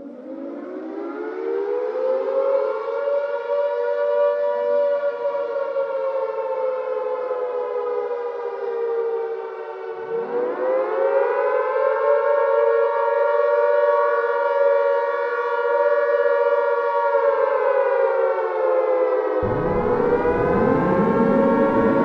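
Civil defense warning siren winding up from a low pitch into a steady wail. The pitch drops briefly about ten seconds in and winds back up, then falls again near the end as new rising sweeps come in over it.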